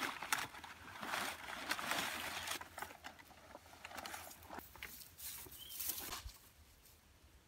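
Rustling and crackling of a bundle of large leaves and dry grass being gathered up and lifted, in irregular bursts that are loudest in the first few seconds and die away after about six.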